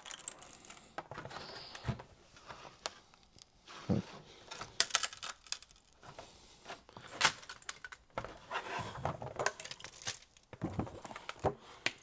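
Flexible gold PEI spring-steel build plate being bent by hand under TPU 3D-printed shoes, giving irregular clicks, pops and crackly tearing sounds as the printed parts strain and peel against the sheet. The TPU is still stuck hard and does not come free.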